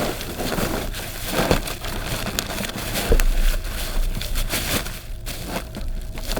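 Bubble wrap and plastic packaging crinkling and crackling, with scattered knocks, as a wrapped stool base is pressed down into a cardboard box.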